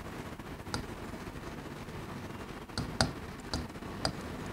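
A few short, sharp taps and clicks of a marker tip striking a blackboard while writing, about five of them, the loudest about three seconds in.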